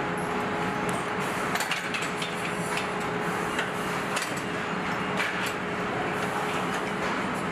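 Car assembly-line noise: a steady machinery hum with a constant thin tone, and scattered light clicks and knocks as parts and tools are handled.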